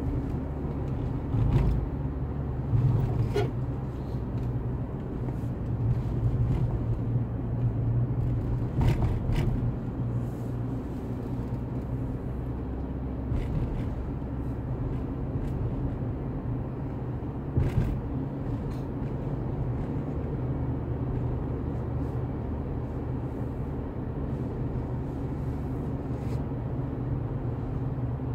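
Car engine and tyre noise heard inside the cabin while driving: a steady low rumble, broken by a few short knocks, the loudest about eighteen seconds in.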